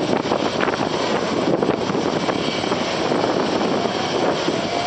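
Jet airliner's tail-mounted engines at takeoff thrust: a loud, steady roar of jet blast aimed straight at the listener.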